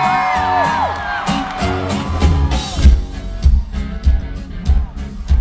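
Live band music with electric and acoustic guitars and a drum kit, the kick drum settling into a steady beat from about two seconds in. Crowd whoops and whistles fade out over the first two seconds.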